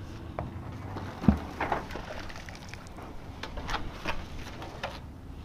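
Heavy magnet-fishing rope being handled and dragged, giving faint scattered rustles and clicks, with one dull thump about a second in.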